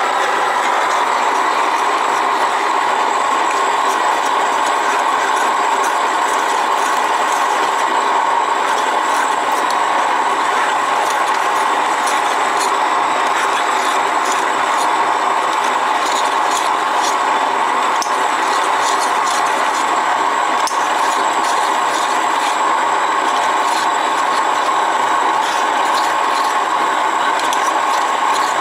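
Electric countertop grain mill in a wooden housing, running steadily and grinding grain into flour.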